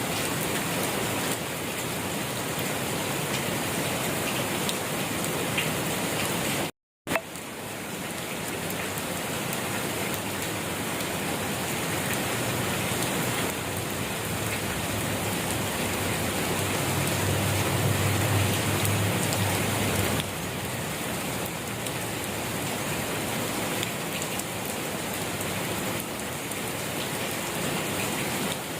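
Steady rain falling on a surface, an even dense hiss of drops. It cuts out completely for a fraction of a second about seven seconds in, and a low rumble swells underneath for a few seconds past the middle.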